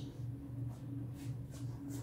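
Steady low hum with a few faint, short rustles.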